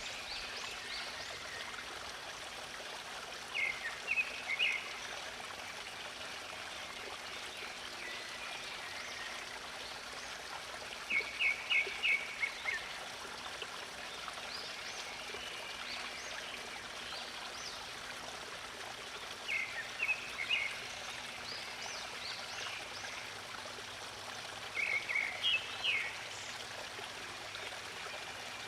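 Running water, a stream or brook, flows with a steady rush. Over it a songbird sings a short phrase of quick, repeated chirping notes four times, several seconds apart, and these phrases are the loudest sounds.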